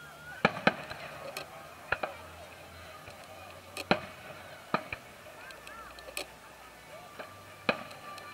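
Fireworks display: aerial shells bursting with sharp bangs at irregular intervals, about half a dozen, the loudest near the start and about four seconds in.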